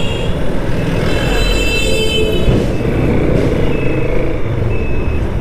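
Motorcycle riding slowly through town traffic: a steady engine and road rumble. A high, thin tone sounds from about a second in for about a second and a half, and shorter high tones follow.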